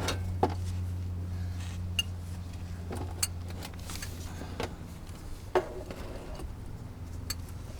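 Scattered metallic clinks and knocks of hand tools and gear being handled under a car during an oil change, over a steady low hum.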